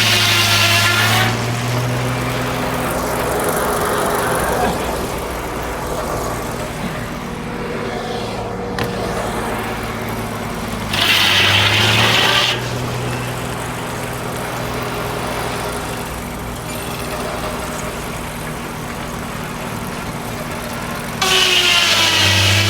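Frick circular sawmill blade spinning with its engine drive running steadily. Three louder stretches of high whine mark the blade cutting through the log: at the start, about eleven seconds in, and near the end, where the pitch sags under load.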